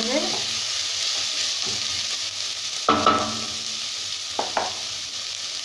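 Sliced onion, carrot and capsicum sizzling in hot oil in a frying pan while being stirred. A sharp clink about three seconds in and two lighter knocks a second and a half later.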